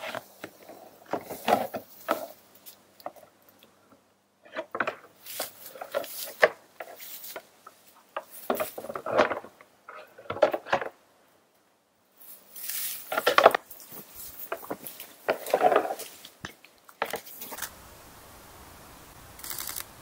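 Two bull moose sparring, their antlers clacking and grinding together in irregular bursts of hard knocks with short pauses between. The clashing stops near the end.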